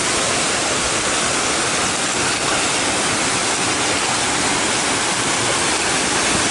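Steady rushing water of a mountain creek and waterfall cascade, a loud, unbroken hiss.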